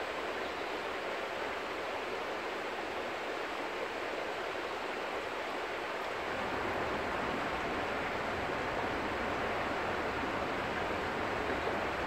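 River water flowing, a steady rushing, with a low rumble joining about halfway through.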